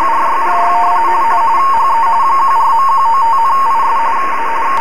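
RTTY (radioteletype) signal received on an HF radio in upper sideband: a two-tone warble near 1 kHz, flipping rapidly between two close pitches, over steady band hiss. It carries a typed text message, a warning transmitted onto the 14.195 MHz voice calling frequency.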